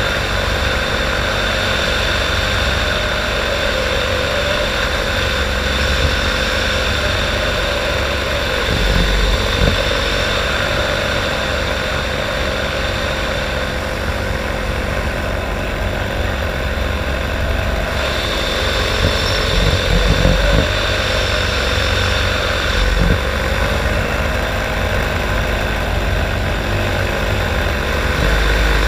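Light aircraft's engine and propeller droning steadily in flight, with a gusty low rumble of wind buffeting the microphone.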